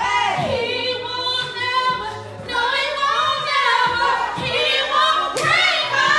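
A woman singing karaoke into a handheld microphone, holding long notes with a wavering pitch.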